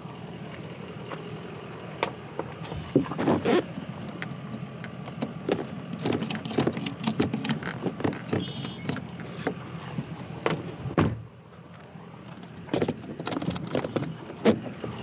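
Handling sounds at a car: a run of irregular clicks, knocks and rustles from the open car door, the roof straps and gear being moved about, with no engine running.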